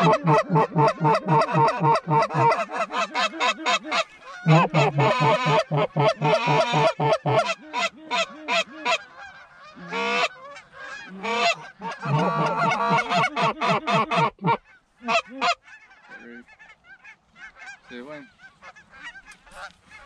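Hunters blowing goose calls in rapid, loud honks and clucks to bring Canada geese in, several notes a second. The calling comes in two long runs, breaks off about halfway through, and thins to scattered, quieter notes near the end.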